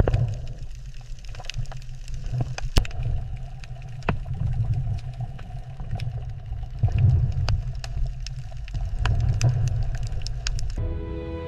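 Underwater ambience: a low rumble that swells and fades, with scattered sharp clicks and crackles. Music with held tones comes in near the end.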